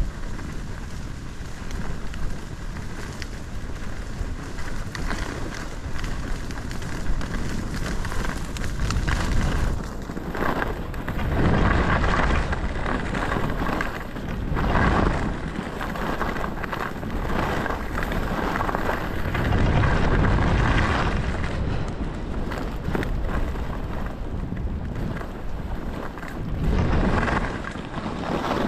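Wind rushing over the microphone while skiing downhill, a loud steady roar that swells several times, most strongly about twelve, fifteen, twenty and twenty-seven seconds in.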